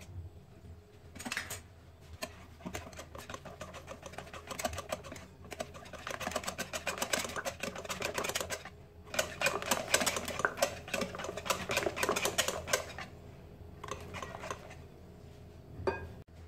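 Wire whisk beating cake batter in a glass bowl: fast, rapid clicking of the wires against the glass. There is a short break about nine seconds in, and the strokes grow sparser near the end.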